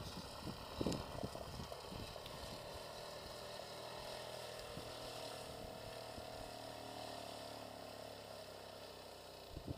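Engine of a homemade quad bike running steadily at a distance, a faint even drone that fades slightly near the end as the quad drives away.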